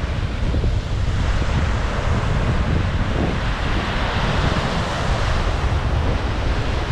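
Wind buffeting the microphone with a steady low rumble, over small waves breaking and washing up a sandy shore; the wash swells about four seconds in.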